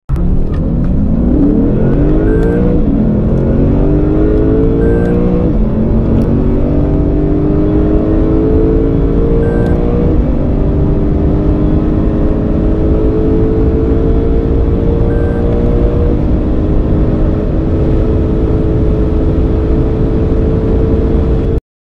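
Sports car engine accelerating at full throttle from a launch, its pitch rising through each gear and dropping back at upshifts about 2.5, 5.5, 10 and 16 seconds in. The sound cuts off suddenly near the end.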